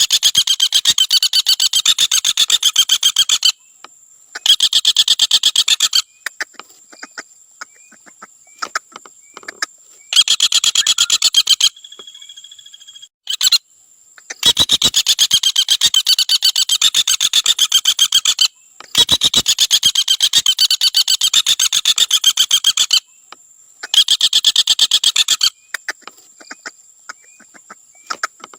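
Common flameback woodpecker giving its rapid rattling trill call again and again: long runs of very fast repeated notes, each lasting a few seconds, with scattered single sharp notes in the gaps between them.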